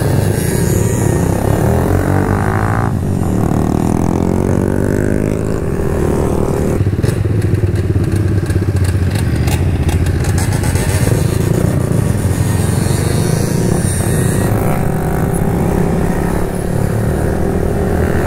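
Kawasaki Z125's 125 cc single-cylinder engine with an aftermarket full exhaust, running under way through the gears; its pitch dips and then climbs as it accelerates a few seconds in. Other mini-bike engines run close by.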